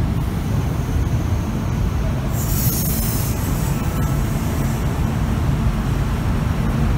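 Kintetsu 12200-series limited express train pulling slowly into an underground station platform: a steady low rumble of the train, with a brief high hiss about two and a half seconds in.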